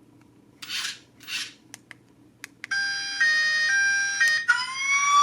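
A toy RC car's built-in sound effects played through its small speaker. Two short hissy bursts and a few clicks come first. About halfway in, an electronic two-tone siren starts, alternating high and low about every half second, and near the end it changes to a rising wailing siren.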